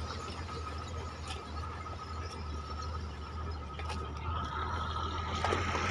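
Engine running steadily, a low hum with a thin, steady high whine over it, with a few faint knocks of spades digging into dry dirt.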